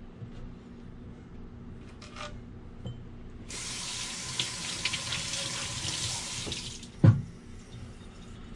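Kitchen faucet running water over a metal grater in a stainless steel sink for about three seconds, starting about a third of the way in, then a single loud knock just after the water stops.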